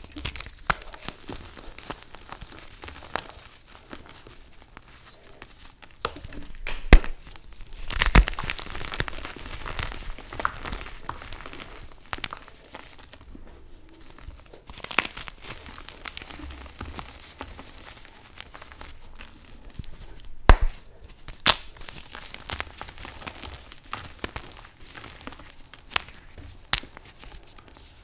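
Dyed Chalklate gym chalk blocks crushed and squeezed by hand: crumbly crunching with a few loud, sharp snaps as chunks break, twice close together about a third of the way in and twice again past the middle.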